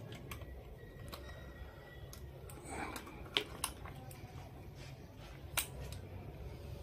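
Several small clicks and handling noises from hands connecting wires to an LED driver at a switchboard, with three sharper clicks in the second half, over a faint steady low hum.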